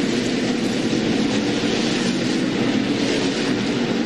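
NASCAR Cup stock cars' V8 engines running at race speed around a short oval: a steady, dense drone that holds unchanged.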